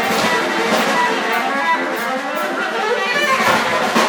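Music led by guitar-like plucked strings, with some brass.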